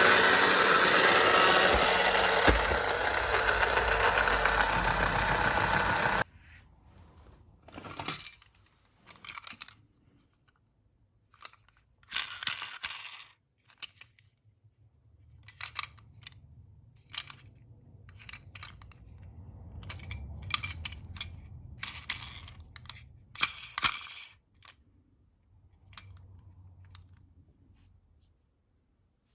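A loud, dense noise that cuts off abruptly about six seconds in, followed by scattered clicks, taps and light rattles of small toy cars being handled, with a faint low rumble between them.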